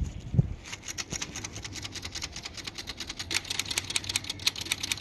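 Royal typewriter being typed on: a fast, dense run of key clicks starting just under a second in, after a single low thump.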